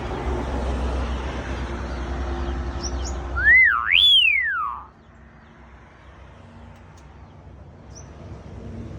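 A loud whistled call of two swoops, each rising and falling in pitch, the second higher, about three and a half seconds in, over a steady low rumble that drops away just after it.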